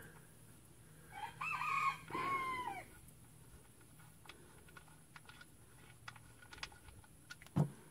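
A rooster crowing once, one long call that falls in pitch at the end. Scattered light clicks follow, with a single knock near the end.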